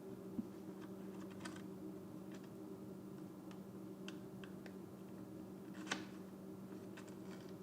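Faint, irregular clicks and crinkles of a vinyl decal and its backing or transfer tape being peeled and handled, with a soft knock about half a second in and a louder crackle near the six-second mark, over a steady low hum.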